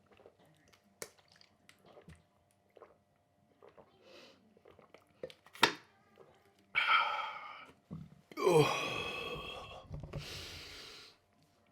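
A man's strained groans and a long breathy exhale right after downing a shot of liquor, preceded by faint clicks and handling noises and one sharp click.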